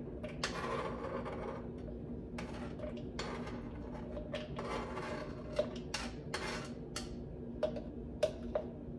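A kitchen knife scraping finely chopped red onion off a textured clear cutting board, a series of short scrapes, then several sharp knife taps in the second half as the onion is knocked off into a plastic cup.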